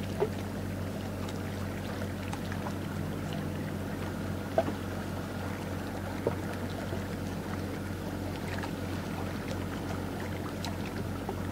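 A small wooden river boat's engine running steadily as the boat moves at speed, a low drone under water rushing and splashing at the bow. A few short sharp clicks, the loudest about halfway through.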